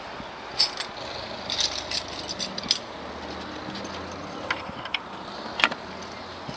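Scattered light clicks and clinks, about a dozen, as hands work at a car engine's oil filler cap that is stuck tight, over a faint steady hum.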